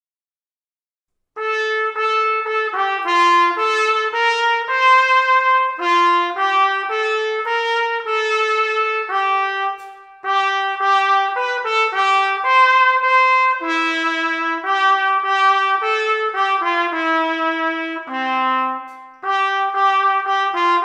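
Brass music led by trumpet, several notes sounding together in a lively, moving line. It starts about a second in after a moment of silence and pauses briefly near the middle.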